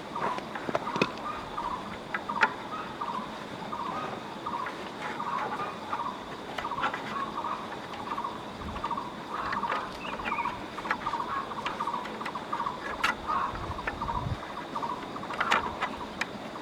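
Farm poultry calling, a near-continuous run of short warbling calls, with a few sharp clicks or knocks scattered through.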